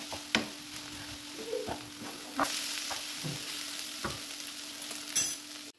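Wooden spatula stirring a filling of diced vegetables frying in a metal pan, with a steady sizzle and about five sharp scrapes of the spatula against the pan. The sound cuts off abruptly near the end.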